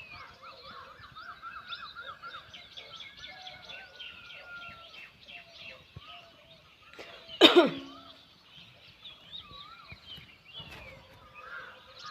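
Several birds singing and chirping together in a morning chorus, a mix of quick trills and warbling calls. About seven and a half seconds in, one much louder, sudden call sweeps down in pitch.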